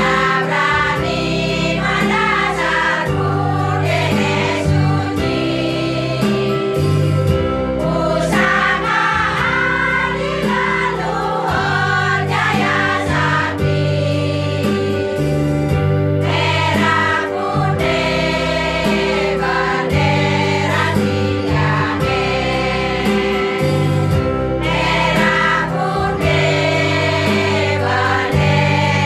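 A choir of elderly singers sings a patriotic folksong in parts with instrumental accompaniment.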